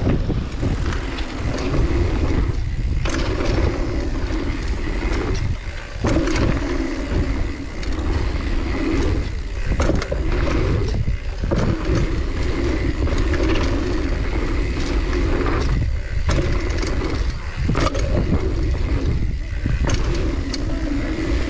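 Mountain bike being ridden along a dirt trail: continuous tyre and wind noise with knocks and rattles over bumps, and a steady mid-pitched buzz that breaks off briefly every few seconds.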